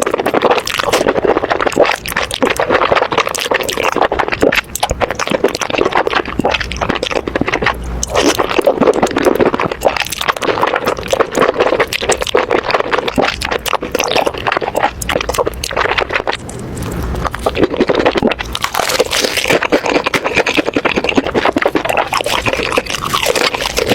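Close-miked mukbang eating sounds: wet chewing and slurping of noodles, a dense unbroken run of small smacks and clicks.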